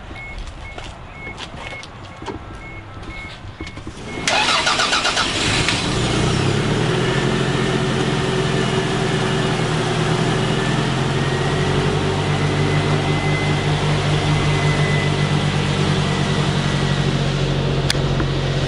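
The 1988 Toyota Celica All-Trac beeps rapidly and steadily. About four seconds in, its starter cranks briefly and the 3S-GTE turbocharged 2.0-litre four-cylinder catches and settles into a steady idle. It is a first start on the new radiator after the car has sat for a long time.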